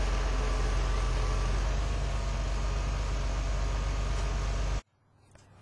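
Engine running steadily with a strong low hum, stopping abruptly near the end.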